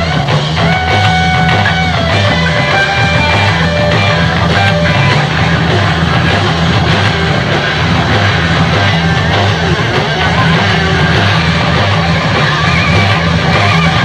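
Loud rock music: electric guitar over a steady bass and drums, with a held guitar note about a second in.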